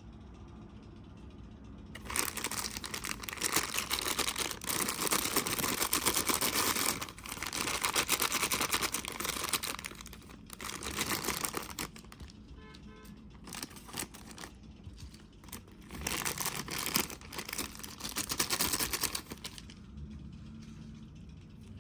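Plastic toy packaging crinkling and tearing in three long bursts of dense crackle.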